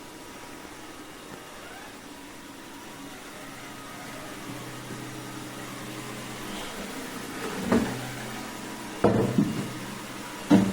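Xiaomi X20 Pro robot vacuum running with a steady motor hum that grows louder a few seconds in. Several sharp knocks come in the last three seconds.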